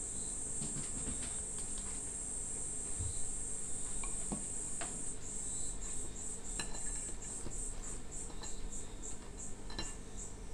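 Cicadas singing: a loud, high, steady buzz that about halfway through breaks into a pulsing song of about three pulses a second. A few faint clicks of a wooden spoon against a ceramic bowl and plate.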